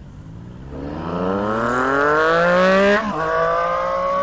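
Motorcycle engine accelerating away from a standstill: the revs climb steadily, drop sharply at an upshift about three seconds in, then climb again.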